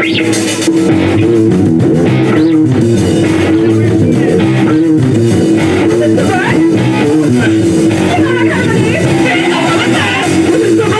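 Live rock band playing a song: guitar over a drum kit, loud and steady throughout.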